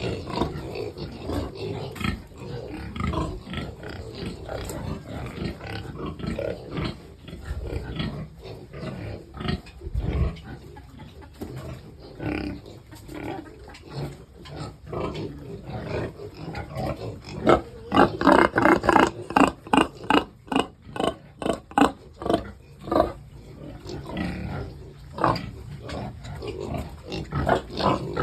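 Pigs grunting in many short, irregular bursts, growing louder and quicker about two-thirds of the way through.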